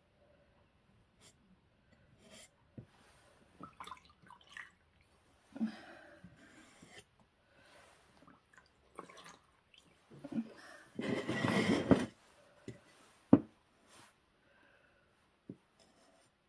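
A sponge being rinsed in a pot of water: small splashes and drips, with a louder burst of splashing lasting about a second, about eleven seconds in, and a sharp knock soon after.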